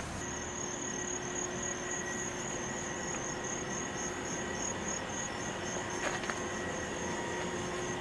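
Insects chirping in a high, even pulse about four times a second over steady outdoor background noise, with two faint clicks about six seconds in.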